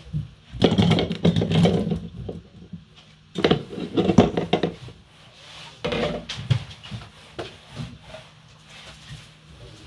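Peeled raw potato chunks tumbling out of a plastic bowl and knocking into a stainless steel saucepan, in three bursts of clatter, the last about two-thirds of the way in, followed by quieter handling.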